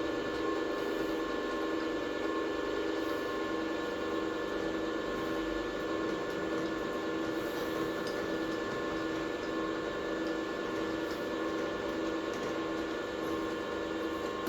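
A workshop machine tool's electric motor running steadily with an even hum and whine, cutting off at the very end.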